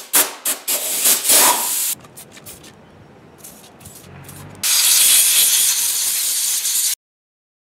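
Compressed-air blow gun blasting dirt off a small engine block: several short blasts of hissing air, then a few squirts from a trigger spray bottle of cleaner, then a steady two-second blast of air that cuts off abruptly.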